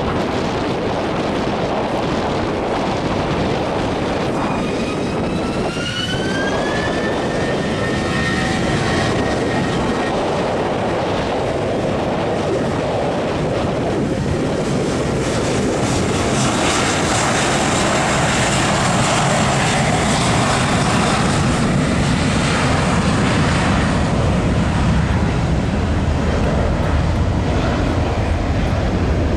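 Airbus A320-family airliner's IAE V2500 turbofans spooling up for takeoff, a rising whine about four to eight seconds in. The engine noise then grows louder and fuller as the jet accelerates down the runway on its takeoff roll.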